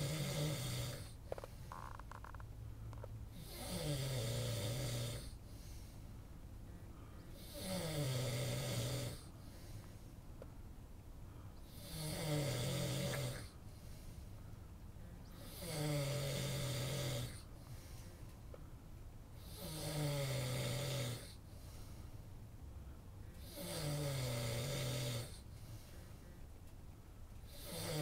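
A man snoring in his sleep, one snore about every four seconds, each lasting about a second and falling slightly in pitch.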